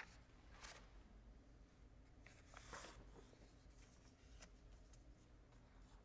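Near silence: room tone with a steady low hum and a couple of faint rustles, one about a second in and one near the middle.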